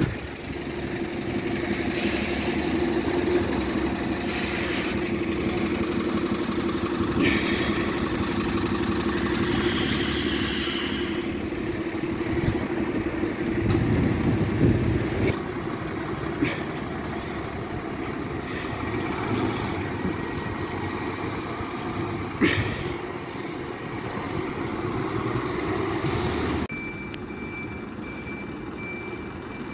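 Double-decker bus engine running close by as the bus moves slowly past, a steady drone with a few short hisses and clicks and a swell about halfway through. Near the end the sound cuts to a quieter, more distant single-decker bus.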